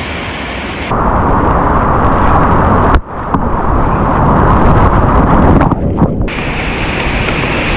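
Loud rushing whitewater of a mountain river in spate, a dense rumbling noise with no pitch, changing abruptly about one, three and six seconds in.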